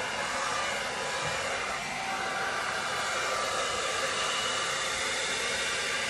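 Hair dryer blowing steadily without a break, used to push wet poured paint across a canvas in a Dutch pour.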